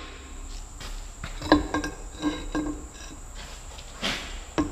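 Light metallic taps and clinks on the hardened steel of a Cat D3C dozer's frozen blade mount, between full hammer blows: a quick cluster of four ringing clicks, then a duller knock and one more sharp click near the end.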